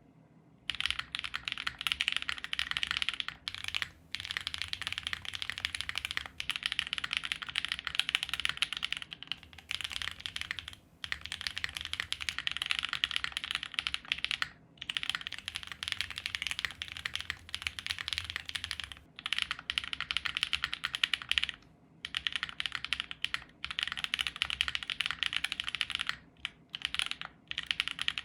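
Fast continuous typing on a custom mechanical keyboard with lubed Drop Holy Panda tactile switches, an aluminium leaf-spring plate and GMK keycaps: dense runs of keystrokes broken by short pauses every few seconds.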